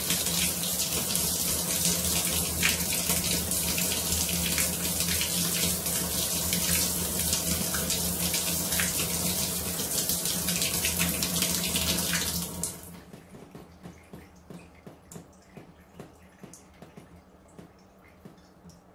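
Shower head spraying water onto hands being rubbed together, a steady hissing spray with splashing. It stops abruptly about twelve seconds in, leaving only faint scattered ticks.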